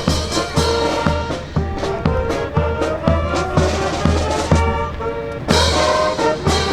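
Brass band playing a lively tune with held brass notes over a steady drum beat.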